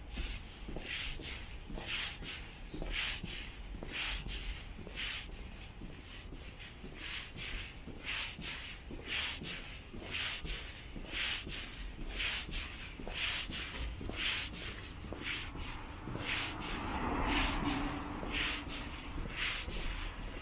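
Footsteps of a person walking on an asphalt street, shoes scuffing evenly about once a second. About three quarters of the way through, a louder sound with a steady low hum swells and fades.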